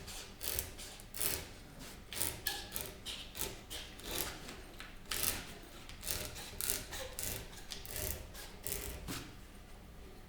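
Hand rubbing or scraping strokes on a wooden speaker cabinet: quick scratchy strokes, two or three a second, getting fainter near the end.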